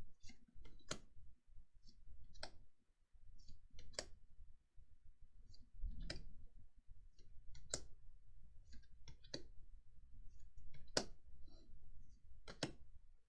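Trading cards being handled and laid down one at a time: a sharp card snap about every one and a half seconds, with fainter ticks and shuffling between.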